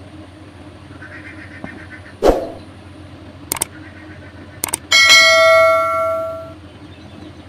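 Subscribe-button animation sound effects: a thump, then mouse clicks, then a bell notification chime that rings for about a second and a half before fading.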